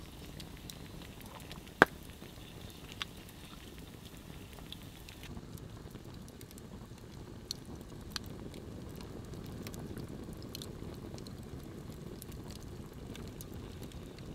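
Log campfire burning with a steady low rush of flames and scattered sharp crackles and pops, the loudest pop about two seconds in.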